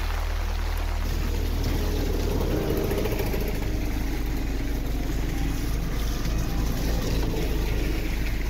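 Steady low rumble and rush of a brown, flood-swollen river running high and fast after days of heavy monsoon rain.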